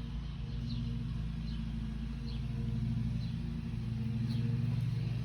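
Steady low engine hum that swells a little toward the end, with a small bird's short high chirps repeating about once a second.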